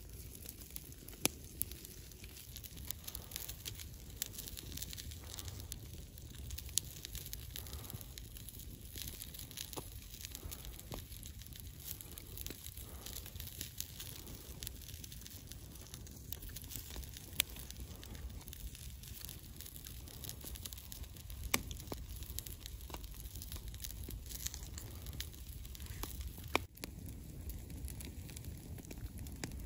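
Wood campfire burning and crackling: a steady low hiss with sharp pops scattered throughout, a handful of them louder.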